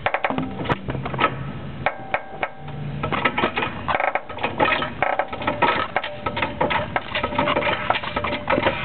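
Creaking from the upper strut and spring area of a 2000 Honda Civic's suspension (KYB GR2 struts, Eibach Sportline springs, Skunk2 camber kit) as the car is jacked up slowly, mixed with repeated clicks and metal sounds from the jack. The owner cannot tell whether it is the springs or a bushing in the camber kit.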